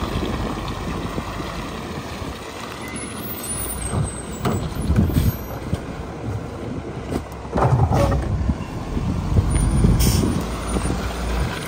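Mack MR garbage truck's diesel engine idling with a steady low rumble while a trash cart is tipped by hand into the rear-loader hopper, with knocks and the clatter of trash falling. A brief hiss of air comes near the end.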